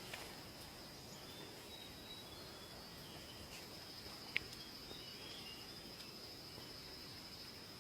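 Faint, steady high-pitched insect trill with a few faint short chirps, and one sharp click about four and a half seconds in.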